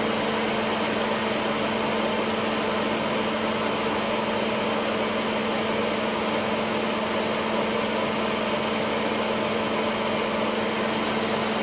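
Soldering fume extractor's fan running with a steady hum.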